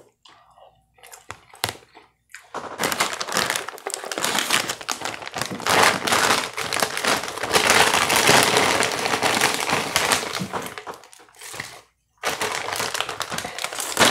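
Plastic potato-chip bag crinkling as it is handled, a dense crackling that starts a couple of seconds in, stops briefly near the end and then starts again.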